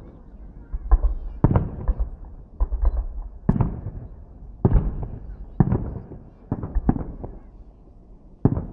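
Fireworks salute shells bursting: about a dozen booms, roughly one a second, each with an echoing tail.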